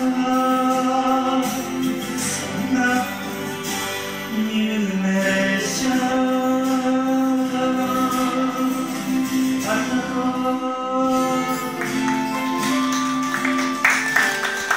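A man singing long held notes over his own acoustic guitar. About twelve seconds in, the voice stops and the guitar plays on alone in short picked notes.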